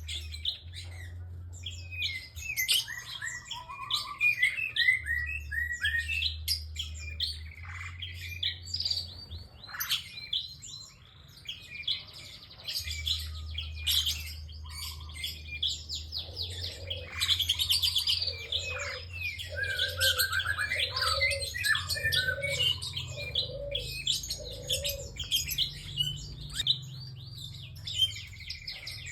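Prinia (prenjak) singing non-stop: rapid, sharp chirps and trills, with a series of about seven lower, evenly spaced notes midway through. A low hum comes and goes underneath.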